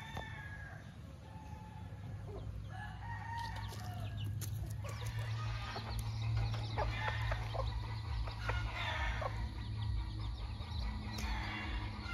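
Gamefowl chickens calling: a rooster crowing and hens clucking, two drawn-out calls in the first few seconds, then rougher, scratchier calls, over a low steady hum.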